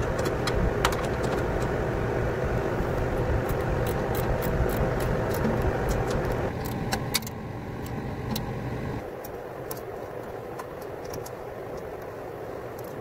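Steel hand tools, a wrench and a ratchet, clinking and clicking against metal as bolts are worked, over a steady machinery rumble. The clinks thin out after about seven seconds, and the low rumble drops away about nine seconds in.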